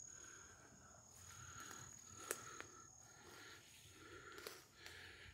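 Near silence: faint outdoor ambience with a thin, steady high whine and a couple of soft clicks.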